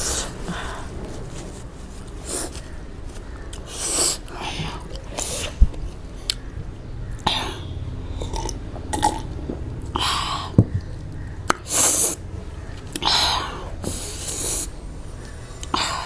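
Close-miked eating of very spicy instant noodles: short noisy sniffs and slurps every second or two, with chewing and a few small clicks in between.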